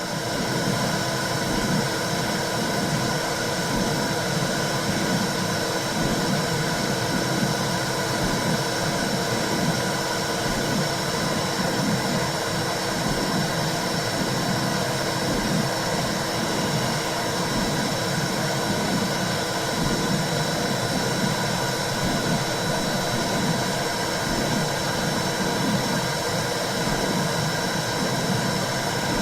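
Womb sound for calming a newborn: a steady whooshing noise like white noise with a low, rhythmic pulsing underneath, the muffled rush and pulse of the mother's body as heard in the uterus. A faint steady high tone sits over it.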